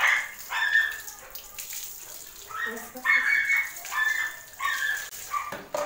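Water poured from a plastic mug splashing over a dog's coat during a bath, with short high-pitched vocal sounds over it.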